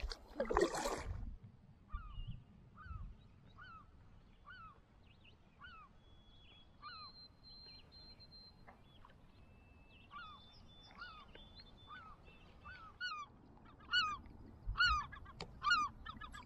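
Geese honking repeatedly, about one honk a second, the calls coming faster and louder over the last few seconds.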